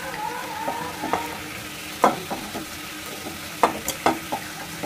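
Hot mustard oil sizzling in a nonstick frying pan as a wooden spatula stirs and scrapes through pieces of fried salted dried hilsa. There are a few sharp knocks of the spatula against the pan, the loudest about two seconds in and twice near the end.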